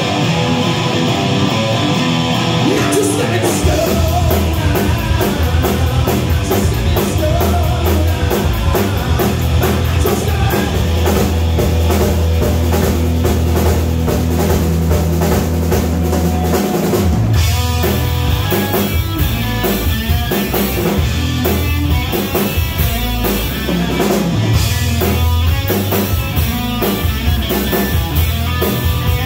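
Live rock band playing loudly: electric guitar, electric bass and drum kit. The bass and drums come in heavier a few seconds in, and the playing changes character about seventeen seconds in.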